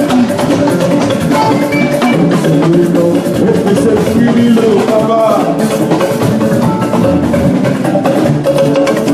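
Live music with drums and percussion keeping a steady, busy beat under several pitched parts, loud throughout.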